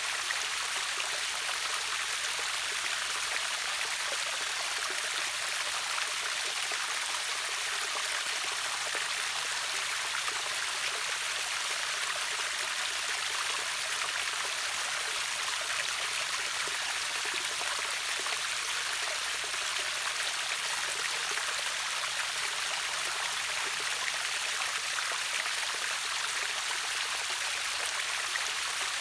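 Water of a river waterfall rushing and splashing in a steady hiss, mostly high with little bass.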